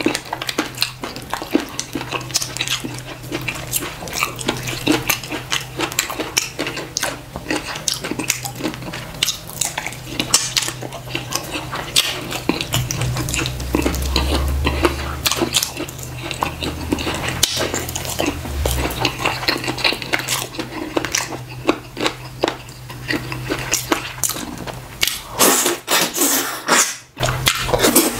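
Close-miked eating by hand: fingers tearing apart fish in slimy ogbono soup on a plate, with a steady run of small wet clicks and smacks, then the food going into the mouth.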